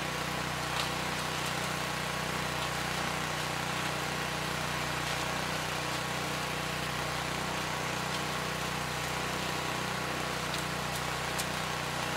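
Cast-iron single-cylinder Kohler K341 engine of an Allis-Chalmers 416 garden tractor running steadily, driving the PTO composter attachment as corn stalks are fed in. A few faint ticks sound over it, about a second in and near the end.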